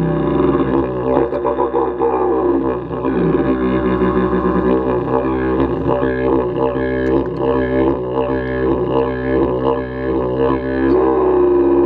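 Didgeridoo played in one unbroken drone, its overtones sweeping up and down as the player shapes the sound with his mouth.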